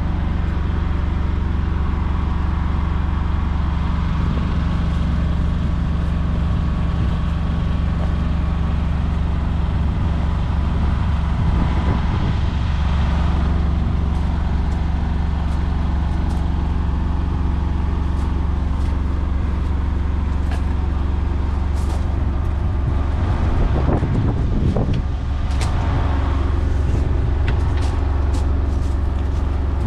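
An engine running at a steady speed, with light clicks and knocks in the second half.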